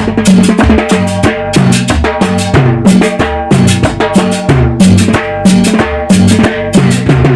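Instrumental break in a Latin dance band song: a drum kit with bass drum and snare keeps a driving, regular beat over a walking bass line.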